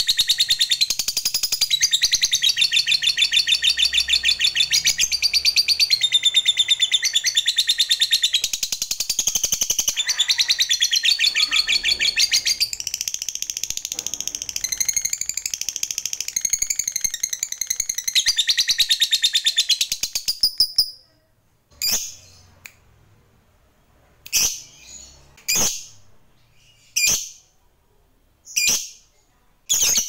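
A lutino Fischer's lovebird singing 'ngekek': a long, unbroken, very fast high-pitched chattering trill. It stops abruptly about two-thirds of the way through and is followed by about six single short chirps, one to two seconds apart.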